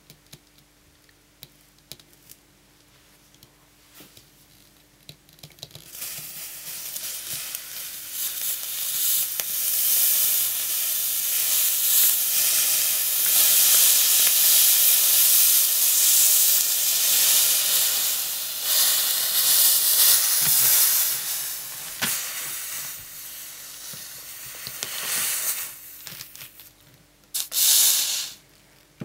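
Red-hot knife blade sizzling as it cuts into a pomegranate, the fruit's juice boiling off against the hot steel. After a few seconds of faint clicks, the sizzle starts about six seconds in, stays loud through the middle, fades, and flares once more briefly near the end.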